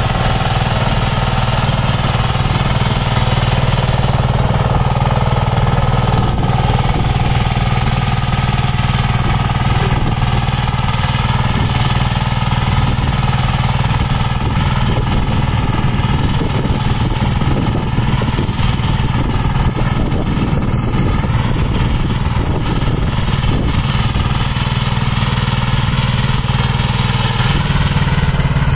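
Kirloskar 15 hp power tiller's single-cylinder diesel engine running steadily under load while rotary tilling soil.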